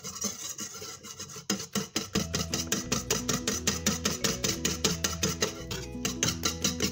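Wire whisk beating a cocoa and egg batter in a stainless steel bowl: quick, even scraping strokes of the wires against the metal, about five a second. Light background music comes in about two seconds in.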